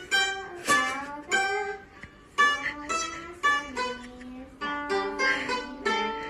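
Background music: a melody of plucked-string notes picked one at a time, with sharp attacks that quickly fade.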